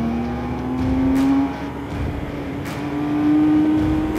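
Touring motorcycle engine pulling under acceleration, its pitch climbing, dipping about a second and a half in as it shifts up a gear, then climbing again, with wind rush on the helmet-mounted microphone.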